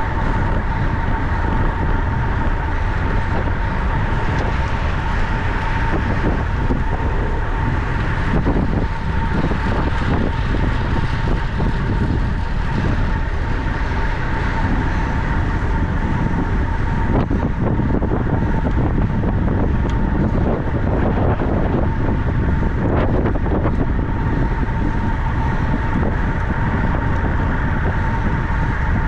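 Steady rush of wind on the microphone of a camera carried on a racing bicycle at speed, with a thin high tone running under it.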